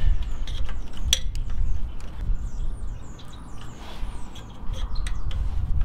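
Light metal clicks of a screwdriver and small carburetor parts as a throttle linkage is fitted to a small engine's carburetor, sharpest about a second in and again near the end, over a low steady rumble. A bird chirps several times in the middle.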